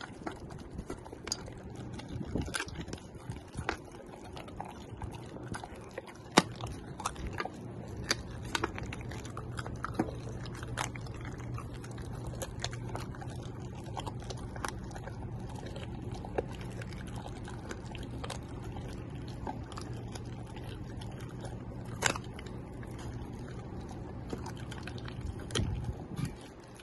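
German Shepherd puppy eating a raw meal mixed with kibble from a stainless steel bowl: irregular chewing and crunching, with sharp clicks against the bowl, over a steady low hum.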